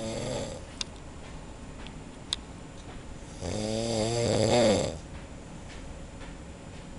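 A man snoring in the next room, heard from outside it. There is one loud, drawn-out snore of about a second and a half near the middle, the fading end of the previous snore at the start, and quiet breathing between.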